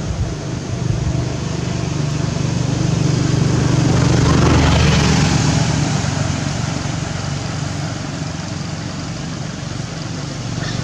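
A motor vehicle engine running with a steady low hum, growing louder around the middle and then easing off.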